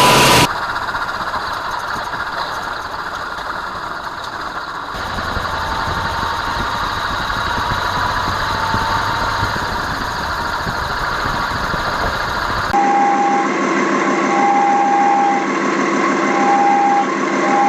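Vehicles with a damaged driveshaft centre support (carrier) bearing running, heard in several short clips: a steady mechanical hum of engine and driveline. In the last clip, from about thirteen seconds in, a whine sounds on and off.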